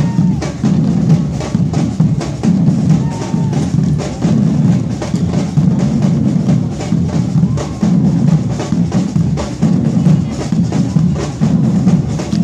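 Live drumming: a percussion group playing a dense, steady rhythm of bass and snare drums.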